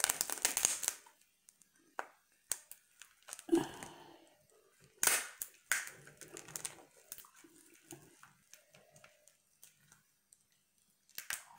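Cooked lobster shell being cracked and pulled apart by hand, in several sharp crackling bursts, the loudest right at the start and more about three and five seconds in, with quieter chewing between.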